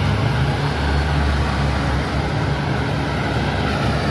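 Kubota DC-105X crawler combine harvester running steadily up close: a low engine drone with a broad machinery rush over it.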